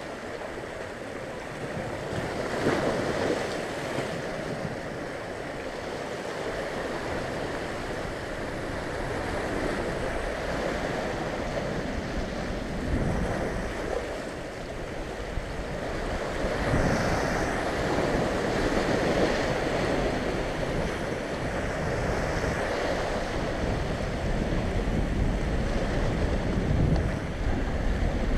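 Sea waves breaking and washing over shoreline rocks, surging several times, with wind buffeting the microphone as a low rumble that grows toward the end.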